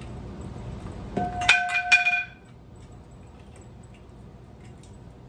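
Metal clinking: two or three sharp strikes about a second and a half in, each ringing briefly with a bell-like tone, then the clatter dies away.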